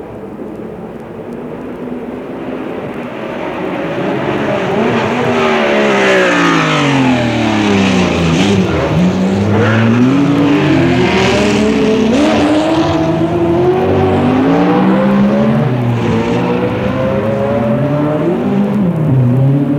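Several 3-litre Formula One racing engines shifting down as the cars brake for a tight hairpin, then accelerating away up through the gears. Overlapping engine notes fall and climb again in quick steps, growing louder about four seconds in.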